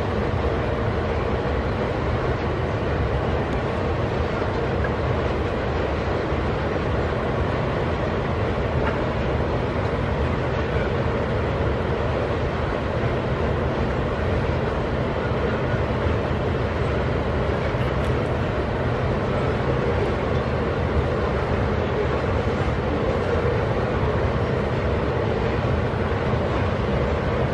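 Loaded iron-ore wagons of a freight train rolling past: a steady, unbroken rumble of the cars' wheels on the rails.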